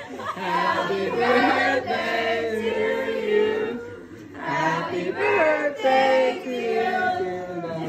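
A group of voices, women, men and children, singing together, with a short break about four seconds in.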